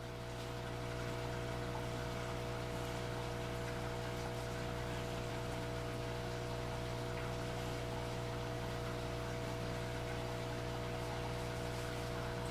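Steady, unchanging machine-like hum with several constant tones over a faint even hiss.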